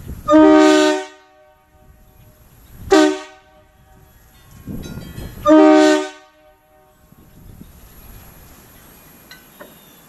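Nathan Airchime K2 train horn sounding bells 1 and 2 together as a chord, in three short blasts: one of under a second, a brief toot about three seconds in, then another of under a second. Each blast is played easy, not at full length.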